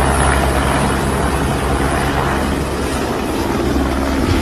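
A light helicopter flying close by: loud, steady rotor and turbine noise with a constant low drone.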